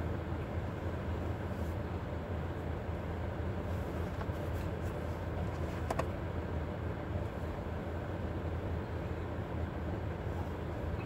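Steady low rumble inside a car cabin, with one sharp click about six seconds in as something on the overhead console or sun visor is handled.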